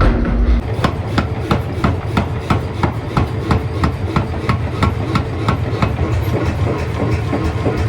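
Forging hammer striking metal in rapid, even blows, about four a second, over a steady low machine hum.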